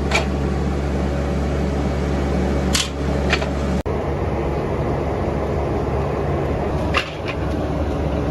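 Workshop machinery running with a steady low hum, with a few sharp metallic clinks of metal parts being handled.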